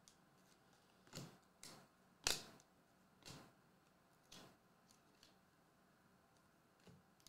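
Faint, irregular clicks and snaps of glossy trading cards being flipped and slid against each other in the hand, about seven over several seconds, the loudest about two seconds in.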